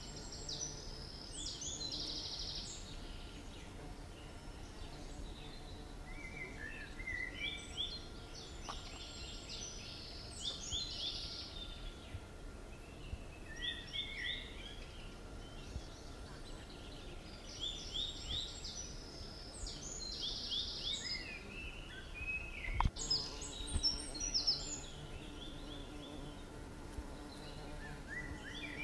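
Birds chirping in repeated bursts of quick high notes every few seconds, over a faint low steady hum. A single knock comes about two-thirds of the way in.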